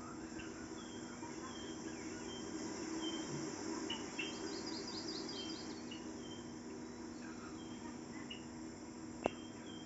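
Nature ambience of crickets chirping and birds calling, with short repeated chirps and a quick trill in the middle, over a steady low hum. A sharp click comes near the end.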